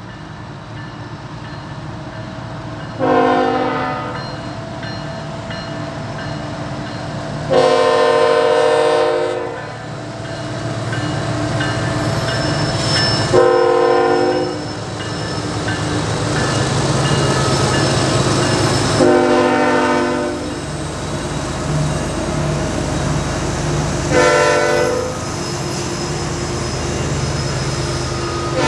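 Locomotive air horn sounding repeatedly over the steady rumble of a passing train: five blasts of uneven length (short, long, short, long, short), with another starting right at the end. Each blast is a chord of several notes, typical of a multi-chime horn.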